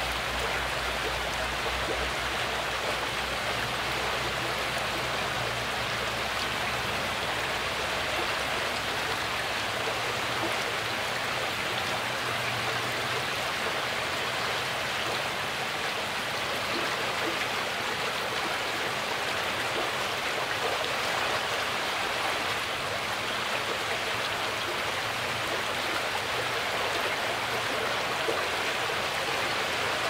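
Shallow water lapping over a shore of pebbles and small stones: a steady wash of fine splashing and trickling.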